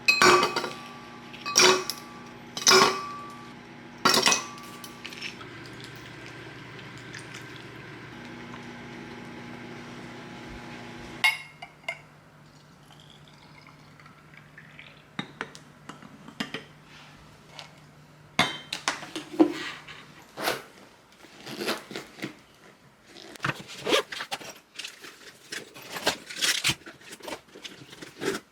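Dishes and cutlery clinking: four sharp ringing clinks in the first few seconds over a steady appliance-like hum. About halfway through the hum stops, and later comes a run of lighter clicks and knocks.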